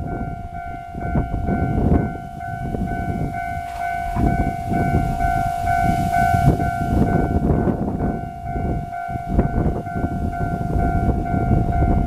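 Railway level-crossing warning bell ringing steadily, an electronic tone repeating a few times a second while the crossing signals flash, over a strong, uneven low rumble.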